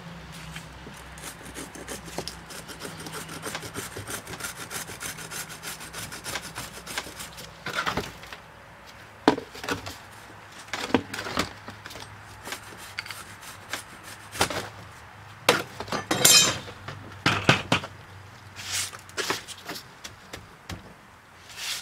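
Molding sand being struck off the top of a wooden molding flask with a steel bar. A continuous gritty scraping comes first, then from about a third of the way in, scattered knocks and scrapes as the bar and hands work against the sand and the wooden frame.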